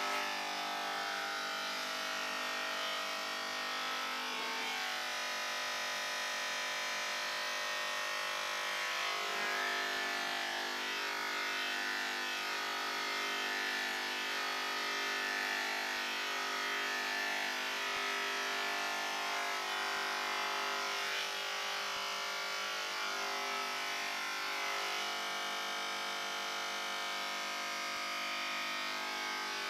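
Corded electric hair clippers buzzing steadily, their hum shifting slightly in tone now and then as the blades cut through hair.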